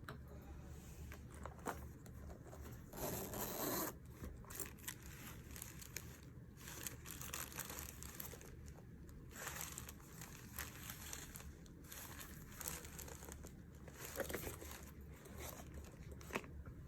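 Packaging rustling and crinkling as a pouch is unwrapped and handled, in a string of short irregular rustles. About three seconds in comes a louder rasp lasting about a second.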